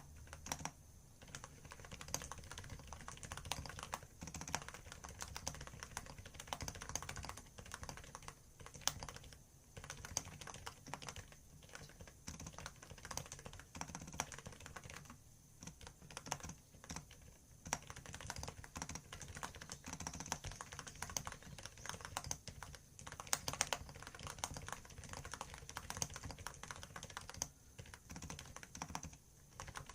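Fast typing on a computer keyboard, with dense runs of key clicks broken by brief pauses every few seconds.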